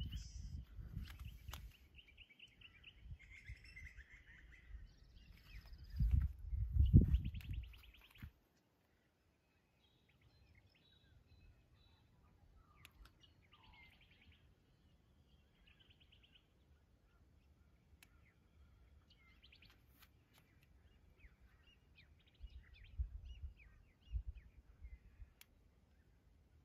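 Birds chirping and calling outdoors, with two bursts of low rumbling noise on the microphone in the first eight seconds; after that, mostly faint, scattered bird calls.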